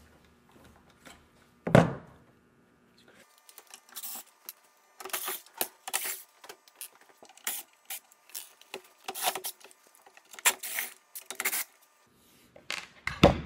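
A sharp knock about two seconds in as the tiller handle comes off an electric trolling motor, then a cordless screwdriver run in short bursts, backing screws out of the motor's plastic control head, with clicks and rattles of handling in between.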